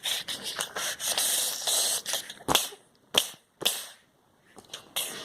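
A rapid, irregular series of sharp cracks and short hissing bursts. The loudest snaps come about two and a half to four seconds in, followed by a brief lull.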